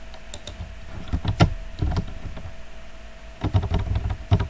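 Computer keyboard keys tapped in scattered clicks, with a quicker run of taps near the end, over a faint steady hum.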